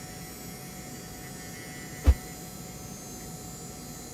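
A faint steady hum with one short, low thump about halfway through.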